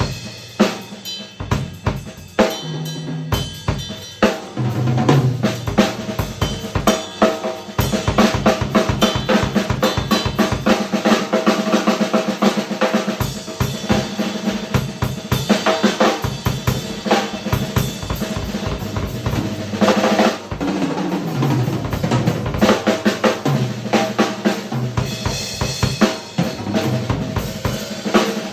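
Yamaha Recording Custom drum kit played solo in a busy improvised groove: fast snare strokes, rimshots and rolls over bass drum, with runs of tom notes.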